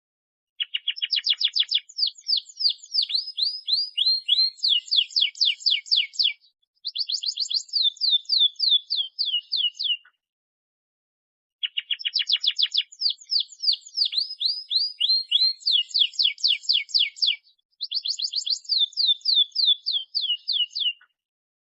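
Canary singing long, lively songs: fast trills of repeated down-slurred whistled notes, shifting between phrases. There are two bursts of song with a short silence between them, and the second repeats the first phrase for phrase.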